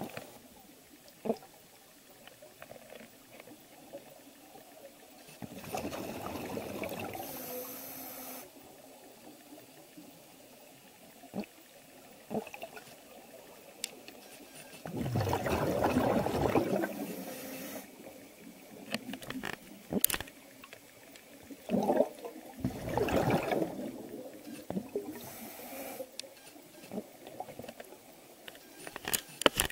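Scuba diver's exhaled bubbles from the regulator, heard underwater: three long bursts of bubbling several seconds apart, in step with breathing, with faint clicks and a low hiss between them.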